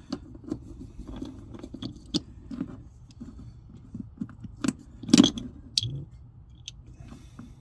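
Irregular clicks, taps and light rattles of small metal hardware and hand tools being handled, with a louder knock about five seconds in.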